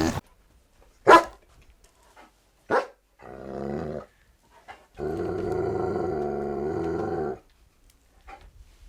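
An animal calling: two short, sharp calls about a second and a half apart, then a shorter pitched call and a long, steady call lasting about two and a half seconds.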